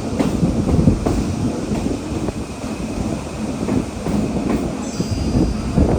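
Train running along the track: a steady rumble with irregular clicking of wheels over rail joints.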